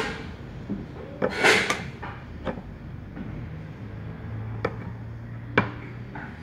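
Starter motor parts being handled and fitted together by hand: the field housing is slid over the armature, with a scraping rub about a second and a half in and a few sharp knocks, the sharpest near the end.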